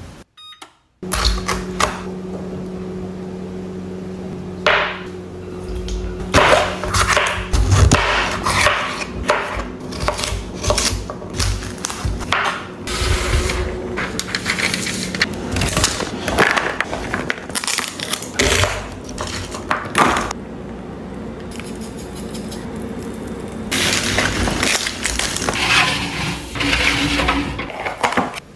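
Kitchen handling sounds: items taken from a refrigerator, paper rustling, and a glass jar opened over a glass measuring cup, with many short clicks and clatters of containers. A steady low hum runs under the first half.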